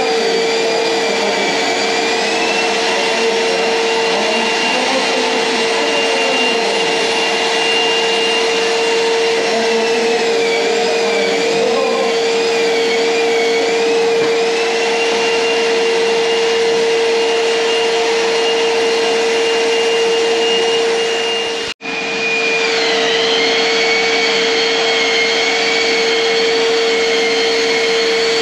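Long-reach 'giraffe' drywall sander sanding plaster, with its dust-extraction vacuum running: a loud, steady whine under higher motor tones that waver in pitch. The sound drops out for an instant about 22 seconds in, then carries on.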